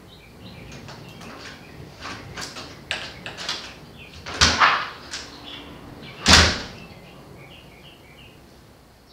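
A door bangs twice, about two seconds apart, as it is opened and shut, with a few lighter knocks before it. Faint bird chirps are heard in the background.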